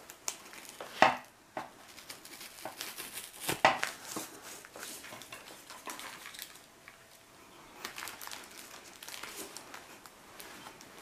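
Foam packing and packing peanuts rustling and crinkling as eggs are worked out of a foam shipping insert and set down on a table, with a few sharp knocks, the loudest about a second in and another near four seconds in.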